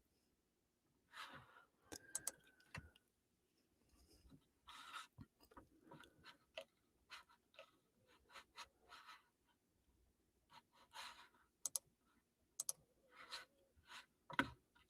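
Near silence: room tone with faint, scattered clicks, irregular and spread across the pause.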